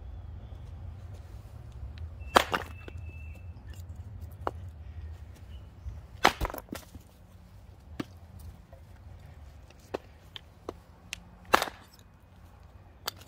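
Hatchet splitting small blocks of wood on a stump chopping block: three sharp chops a few seconds apart, with lighter knocks and clatter of split pieces in between.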